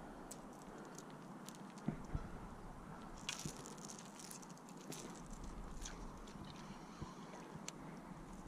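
Scattered small clicks and taps from a fishing rod, reel and lure being handled, over a faint steady hiss.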